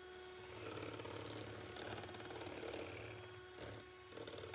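Electric hand mixer running steadily, its twin wire beaters whisking thin pancake batter in a glass bowl, with a constant motor whine.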